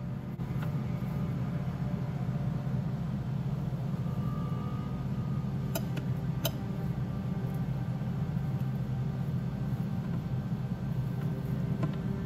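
Steady low droning hum, with two short clicks about six seconds in.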